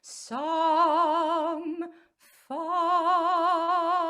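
A woman's solo voice singing unaccompanied: two long held notes with a wide, even vibrato and a short breath-break between them, the second held to the end as the song's final phrase.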